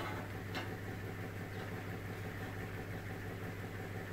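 Steady low machine hum, with a single light click about half a second in.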